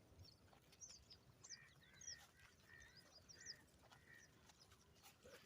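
Faint ducks calling: a run of short, repeated calls in the middle, with scattered high chirps throughout.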